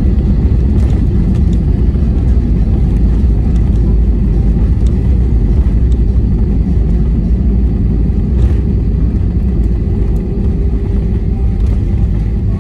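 Airbus A320 cabin noise: a loud, steady low rumble of the engines and airflow, with a few faint rattling clicks. A faint steady hum joins near the end.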